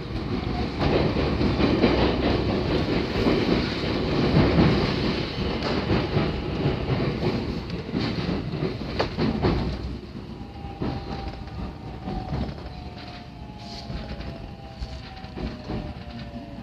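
313-series electric train running on the rails, heard from inside the car: a loud rumble with clicks of the wheels over rail joints. About ten seconds in the rumble drops and the traction motors' whine falls steadily in pitch as the train slows.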